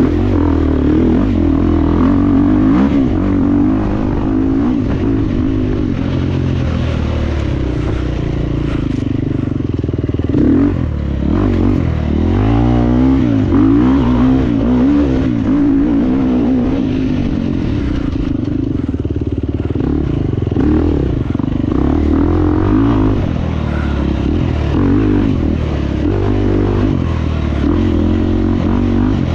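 Enduro motorcycle engine running continuously as the bike is ridden, its revs rising and falling over and over.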